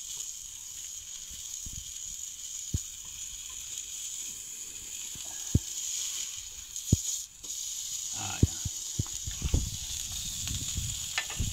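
Burger patties sizzling on a Weber Q 1000 gas grill, one on the griddle plate and one on the grate: a steady hiss, with scattered light knocks and taps that come more often in the last few seconds.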